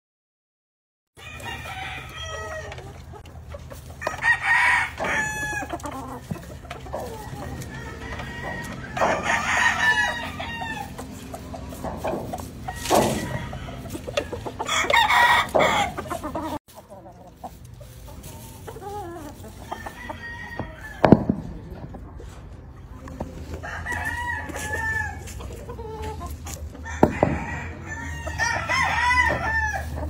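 Gamefowl roosters crowing several times, a few seconds apart, with clucking between the crows. A couple of sharp knocks come in the second half.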